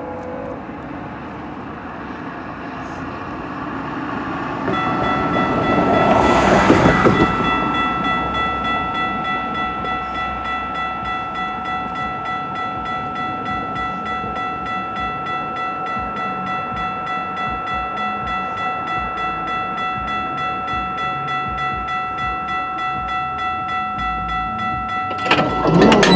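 Railway level-crossing warning bell ringing steadily at about two strokes a second, starting about five seconds in as the crossing activates for an approaching train. A loud rushing swell passes soon after it starts, and another loud burst of noise comes near the end.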